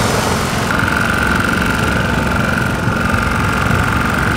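Motorcycle engine idling with a steady rumble. A steady high-pitched tone sits over it from about a second in.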